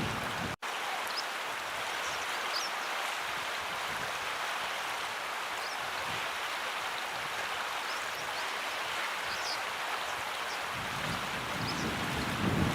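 Steady rush of flowing water, with short high chirps scattered through it. The sound drops out for an instant about half a second in, and low wind rumble comes in near the end.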